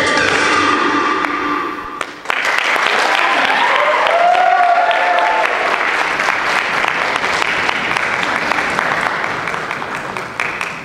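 Dance music cuts off about two seconds in, and the audience breaks into steady applause, with a voice calling out in the middle; the clapping tails off near the end.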